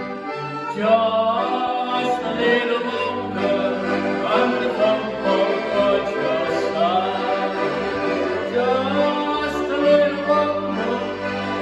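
Two piano accordions playing chords and a moving bass line together while a man sings a gospel song over them.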